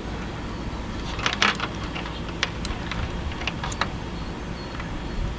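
Scattered small clicks and rustles of wires and plastic connectors being handled and worked through the furnace's wiring opening, with a cluster of clicks a little over a second in. A steady low rumble runs underneath.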